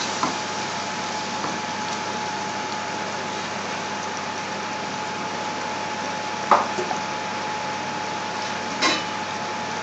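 Chopped onions and whole spices frying in oil in an aluminium pot: a steady sizzle with a thin steady tone running through it. Two short knocks come in the second half.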